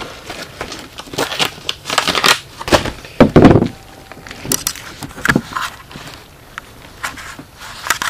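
Handling noise: irregular rustling and crinkling with scattered knocks and clicks as a tool is taken out and set down, coming in bunches with quieter gaps between.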